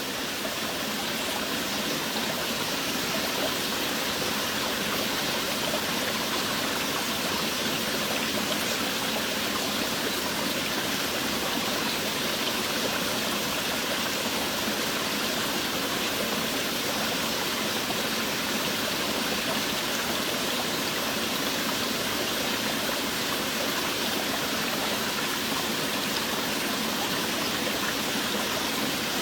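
Steady rain falling, an even unbroken hiss of water with no distinct drops or pauses.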